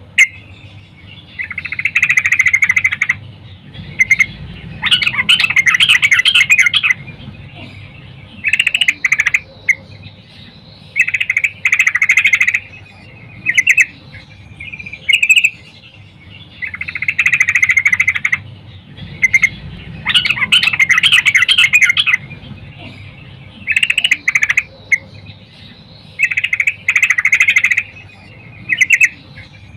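Yellow-vented bulbul singing in short, bright, chattering bursts, about a dozen of them, each lasting up to about two seconds with brief pauses between. It is a female's calling song, used to draw males into singing.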